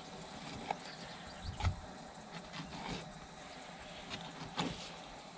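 Fillet knife slicing a bass fillet away from the rib cage, with a few soft clicks and crunches as the blade works over the ribs and pin bones, against a faint steady background hiss.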